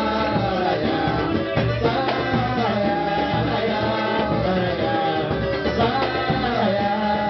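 Samba band playing live, with hand percussion keeping a steady beat under pitched melody lines and voices singing.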